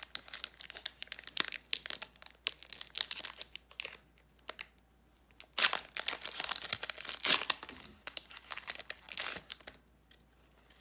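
Foil wrapper of a Pokémon card booster pack crinkling and tearing open, in two spells of crackling rustle, the second louder.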